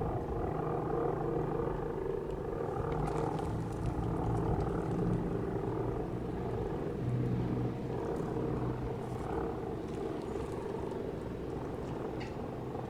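ACA Penetrator 50 (P-50) outdoor warning siren sounding a droning tone, with heavy wind buffeting the microphone.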